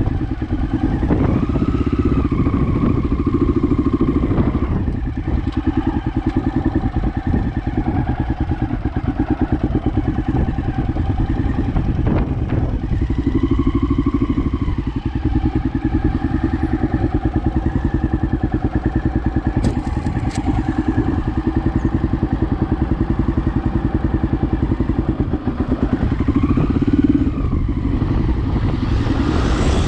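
Honda XL600R's single-cylinder engine running under load, with its pitch rising on the throttle about a second in, again around thirteen seconds and again near the end, under a constant low rumble. A few sharp knocks come through partway along.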